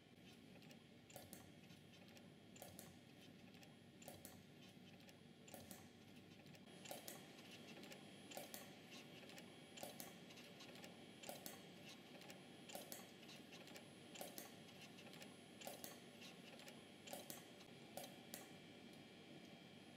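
MEC SH-3 spring-forming machine running through its cycle: faint, sharp double clicks from its tooling, repeating about every one and a half seconds, over a low steady machine hum. About a third of the way in, a faint steady high tone joins.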